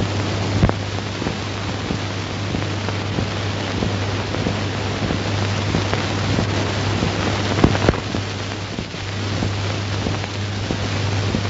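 Surface noise of an old film soundtrack: a steady hiss full of crackle and small pops over a low steady hum, with a louder pop about eight seconds in.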